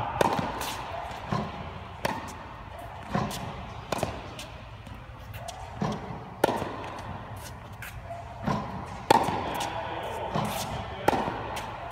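Tennis balls struck by a racket and bouncing on a hard court: a sharp pop every second or so, often in close pairs, each ringing out in the echo of an indoor court.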